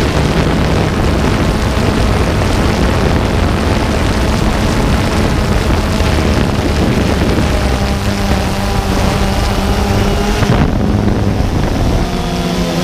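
Drone motors and propellers humming steadily, heard through heavy wind rush on the on-board microphone. About ten and a half seconds in, the hiss drops and the motor tones come through more clearly.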